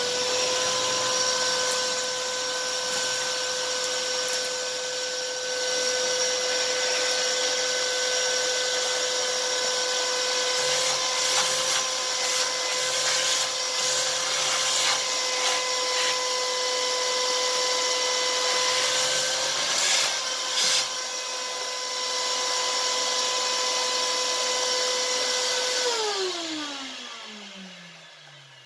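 Vacuum cleaner running with a steady whine while its hose nozzle sucks accumulated dust and dirt out of the inside of a coffee roaster, with a few short clicks in the middle. Near the end it is switched off and the motor winds down, its pitch falling.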